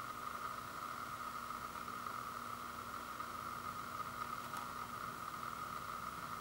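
Steady background hiss with a constant mid-pitched hum: room tone or recording noise. One faint tick about four and a half seconds in.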